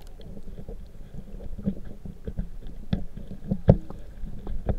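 Muffled underwater sound picked up by a submerged camera: a low rumble of moving water with scattered knocks and clicks, the loudest about three and a half seconds in.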